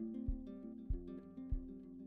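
Background music: strummed acoustic guitar over a steady thumping beat, about three beats in two seconds.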